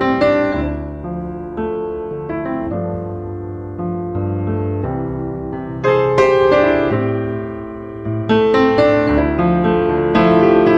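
Piano music: struck notes and chords in a calm, slow piece, growing louder from about six seconds in.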